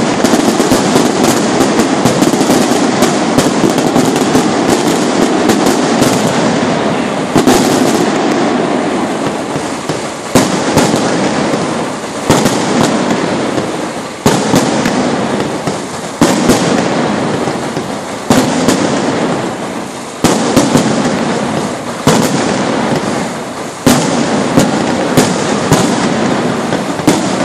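Fireworks display: dense, continuous crackling. From about a third of the way in, a sharp bang comes roughly every two seconds, each followed by crackle that fades away.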